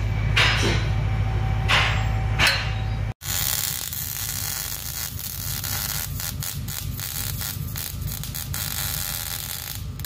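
Welding arc crackling and hissing steadily as a straight exhaust pipe is welded in where the muffler was. It comes in after an abrupt cut about three seconds in, following a steady low hum with a few brief rustles.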